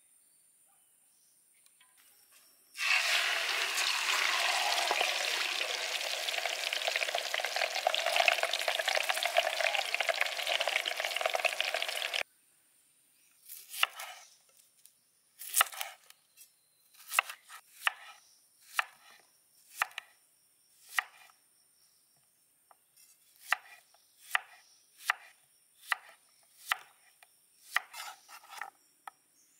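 Hot oil sizzling loudly and steadily in a steel wok for about nine seconds, cutting off abruptly. Then a knife chopping an onion on a wooden cutting board: sharp, separate chops at roughly one a second.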